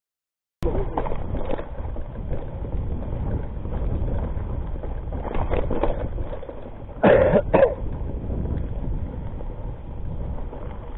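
Mountain bike, a Rockrider ST 520, ridden down a rough dirt trail: a steady rumble of tyres and frame over the ground, with wind on the microphone. About seven seconds in come two short loud bursts. The sound starts about half a second in, after silence.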